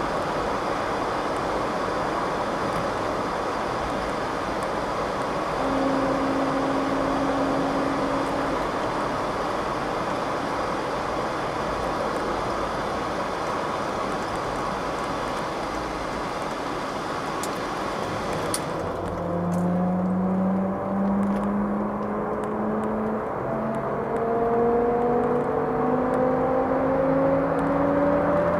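Cabin noise of a 1989 Mercedes 300 TE 4MATIC on the move: steady tyre and road noise whose hiss drops away suddenly about two-thirds of the way through. After that a whining howl climbs steadily in pitch as the car gathers speed onto the motorway. The owner says the howl is the rear differential, not the engine.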